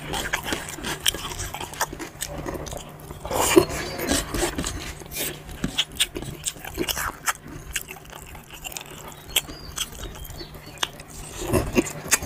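Close-up eating sounds: fingers mixing rice and curry on a steel plate, with wet chewing and lip smacks, and louder bursts about three and a half seconds in and again near the end.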